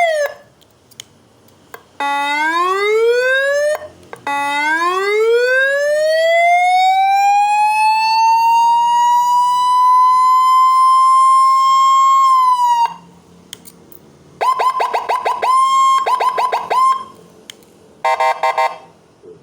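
Electronic police siren through a NARAE NSH 70 horn speaker, stepping through its tones. A short rising whoop is cut off, then a long wail climbs slowly and holds high for several seconds before dropping off. Next come rapid bursts of quick chirps, and near the end a short buzzy burst.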